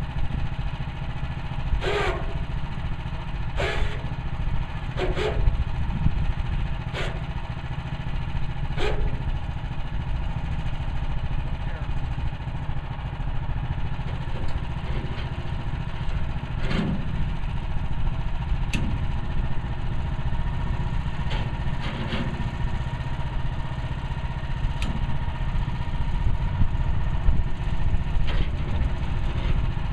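Portable bandsaw sawmill's small gas engine running steadily, with sharp clicks about every second and a half through the first several seconds and a few scattered ones later.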